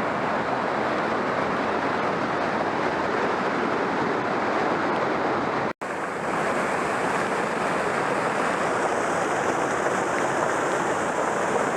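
Flood-swollen creek rushing steadily, loud, full-flow water several feet deep churning over rocks. The sound cuts out for a split second about six seconds in.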